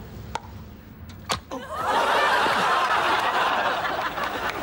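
A single sharp crack of a baseball bat hitting the ball about a second in, followed by studio audience laughter that starts soon after and continues.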